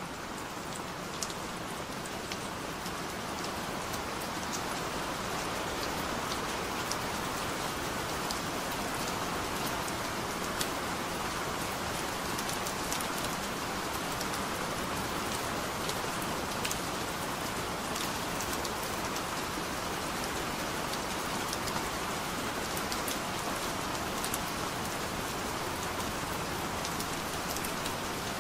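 Steady rain falling: an even hiss with scattered sharp drop ticks, fading up over the first few seconds and then holding steady.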